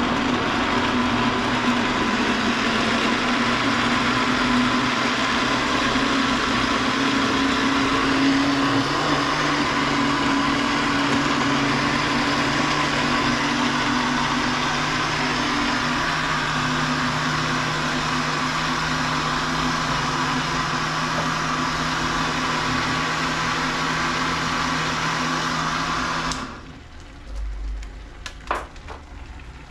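Countertop electric blender running steadily, blending a liquid, with a motor hum under a loud whirring. It cuts off suddenly near the end, and a few light knocks follow.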